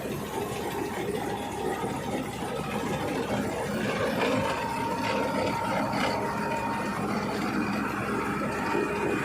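Combine harvester's engine and threshing machinery running steadily, with a thin steady whine that comes in about four seconds in.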